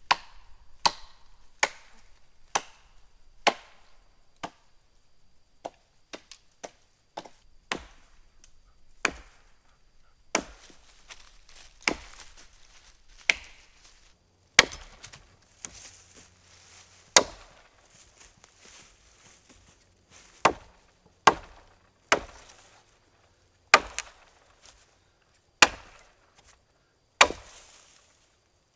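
An axe chopping into wood: a long run of sharp, separate strikes, mostly one every second or so, with quicker runs of blows at times.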